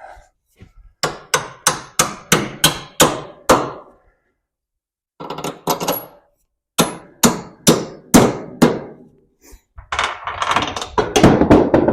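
Hammer blows in quick runs of about two to three strikes a second, with short pauses between runs, during work on a truck's torsion bar. A denser clatter of metal follows near the end.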